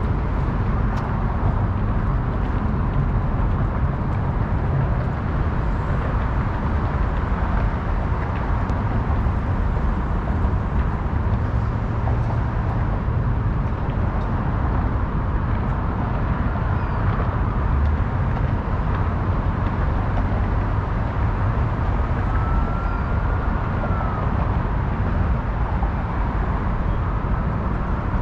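Steady city ambience: a continuous low rumble and hiss of road traffic, with no distinct events. A faint, brief whistle-like tone rises and falls about two thirds of the way through.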